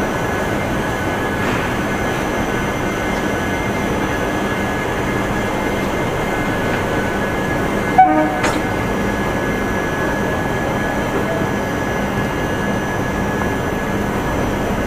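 Indian Railways express passenger train running slowly out of a station, a steady rolling rumble with a constant hum. A single sharp knock about eight seconds in, followed by a smaller one, is the loudest sound.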